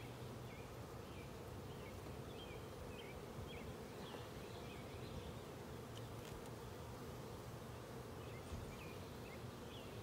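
Honey bees buzzing steadily around an open hive during a frame inspection.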